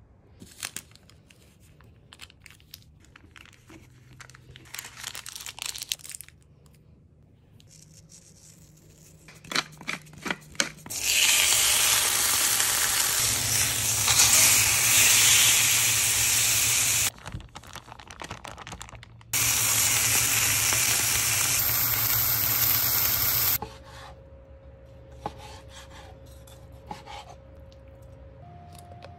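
Steak searing in a hot cast iron skillet: a loud, steady sizzle that cuts off abruptly and starts again. Before it, light scraping and tapping of a spoon spreading soft compound butter on parchment paper; after it, faint taps of a knife slicing the steak on a cutting board.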